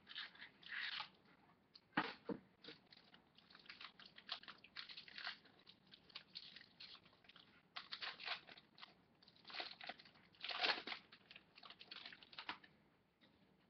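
Clear plastic wrapper from a trading-card box being torn off and crinkled in the hands: an irregular run of crackles and crunches that stops about a second before the end.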